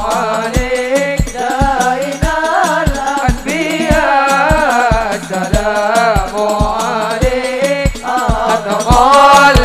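Sholawat (Islamic devotional song) sung in Arabic by a group of young men through a sound system, over drums keeping a steady beat of about two strokes a second.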